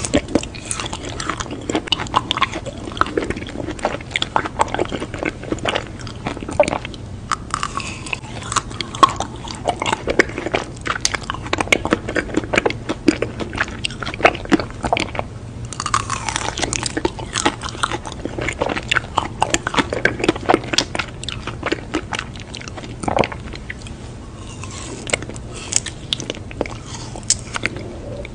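Close-miked biting and chewing of a green-coated ice cream bar on a stick: crisp crunches as the coating breaks, with irregular crackles of chewing throughout.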